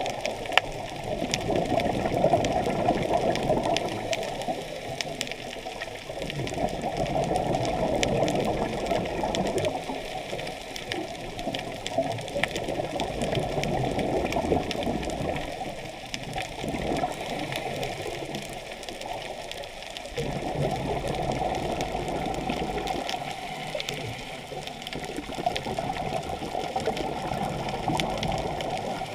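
Muffled rushing water noise heard underwater through a camera housing, swelling and fading every five or six seconds.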